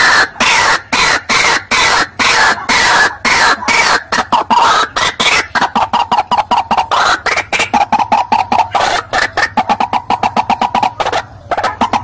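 White-breasted waterhen (ruak-ruak) lure call played back: a loud, rapid string of harsh repeated calls, at first about three a second with each call falling in pitch, then faster and steadier in pitch, with a brief break near the end.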